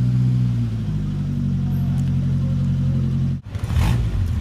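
A motor vehicle engine running with a steady low hum, broken off abruptly about three and a half seconds in, then running on again.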